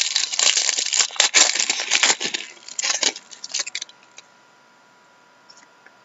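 Wrapper of a hockey trading card pack being torn open and crinkled in the hands: a dense run of crinkling and tearing for about four seconds, then quiet with a few faint clicks.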